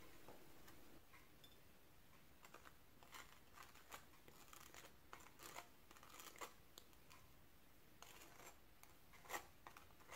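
Butter knife scraping across a slice of toast while spreading peanut butter: a string of short, faint, irregular scratchy strokes starting a couple of seconds in, one a little louder near the end.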